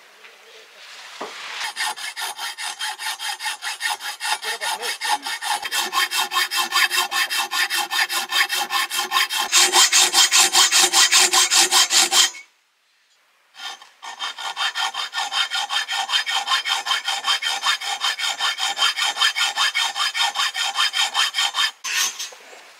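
Fast, even rasping strokes, about four a second, in two long runs. The first run grows louder and brighter towards its end and stops abruptly about twelve seconds in. The second picks up again a second or so later.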